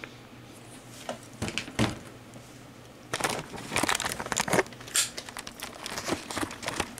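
Packing paper crinkling and rustling as it is handled: a few scattered crackles, then a denser run of crinkling from about three seconds in.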